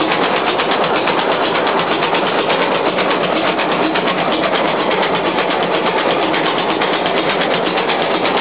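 Aultman & Taylor 30-60 tractor's big four-cylinder engine running steadily, with a rapid, even mechanical clatter.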